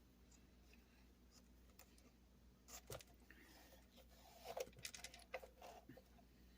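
Near silence with a few faint rustles and light clicks about three seconds in and again around the fifth second: hands pulling stitching thread through punched holes in leather.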